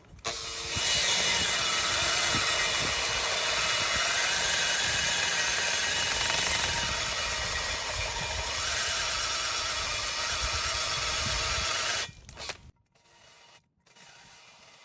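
Power tool driving a valve-guide cutter into a new intake valve guide in a cylinder head, machining the guide to take a valve stem seal. It runs steadily for about twelve seconds, then stops abruptly.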